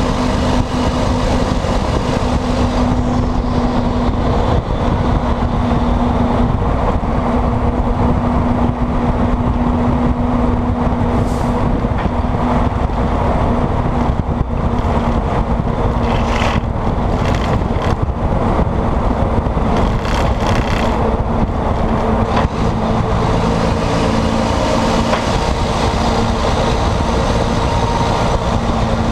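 Volvo FMX 460's 13-litre straight-six diesel running loudly through a broken, straight-through exhaust stack as the truck drives, a steady drone. Its hum drops in pitch about four-fifths of the way through.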